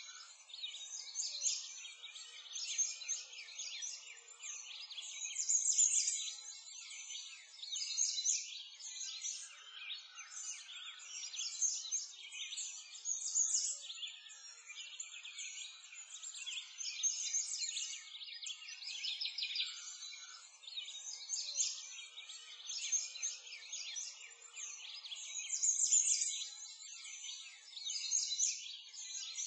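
Dense birdsong: many overlapping high chirps and calls in a continuous chorus, with no low sounds beneath.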